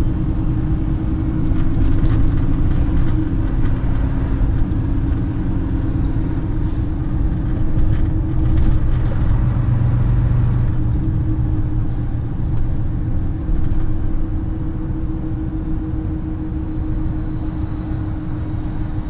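Volvo FM 340 truck's diesel engine running steadily while driving, heard inside the cab with low road rumble.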